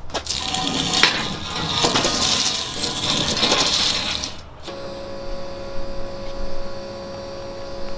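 Rustling, clicks and knocks close to the microphone as a person gets up from a metal-framed patio chair. About four and a half seconds in this cuts off suddenly and gives way to a steady hum with a few held tones.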